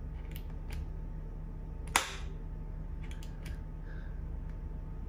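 A wall rocker light switch gives one sharp click about two seconds in, followed by a few faint lighter clicks, over a low steady hum.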